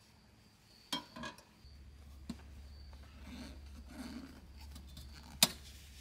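Small metal clinks and taps of camp gear: a metal mug and coffee things handled on a perforated aluminium camp table. A few at about one and two seconds in, and one sharp, louder click near the end, over a faint, steady, high insect trill.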